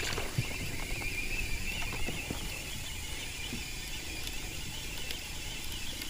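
Baitcasting fishing reel cranked to bring in a hooked bass, a steady wavering high-pitched whir.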